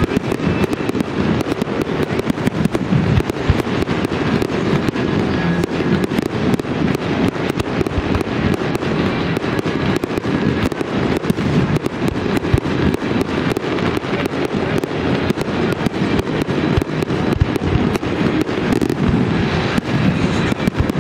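Fireworks display: a dense, unbroken barrage of aerial shells bursting, with bangs and crackles coming many times a second.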